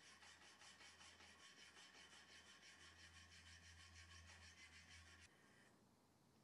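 Steel knife blade being hand-sanded: quick, even back-and-forth strokes of abrasive over the metal, about five a second, faint, stopping about five seconds in.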